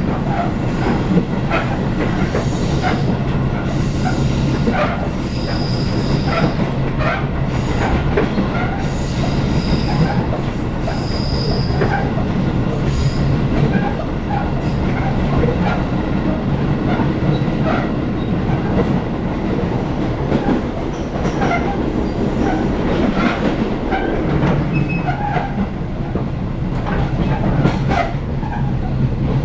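Tobu 10000-series trailer car running at speed, with a constant low rumble and a quick train of repeated knocks from badly flatted wheels. High metallic squealing comes from the bogie off and on through about the first twelve seconds.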